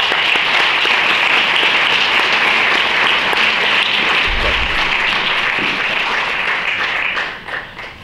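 Audience applauding, a dense, steady clapping that fades away about a second before the end.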